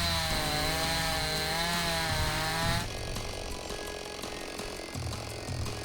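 Chainsaw engine at full throttle, its pitch wavering as the chain bites into the tree trunk during a felling cut. About three seconds in it drops to a quieter, ticking idle.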